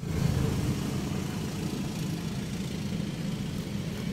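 A steady low engine rumble, like an engine idling.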